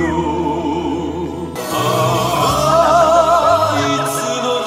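Music: a singing voice with strong vibrato over a bass line, growing fuller and brighter about one and a half seconds in.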